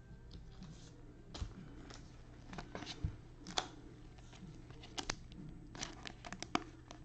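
Faint rustling and clicking of a clear plastic card sleeve handled by gloved hands as a trading card is slid into it. The clicks come scattered at first and bunch together in the second half.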